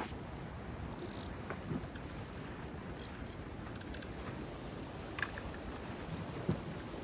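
Night insects chirping in a faint high steady trill over a low rush of wind and sea, with a few short clicks.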